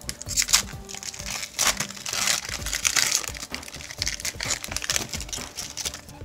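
A trading card pack wrapper crinkling and tearing as it is torn open and the cards are handled, in a run of sharp crackles that is densest about two to three seconds in.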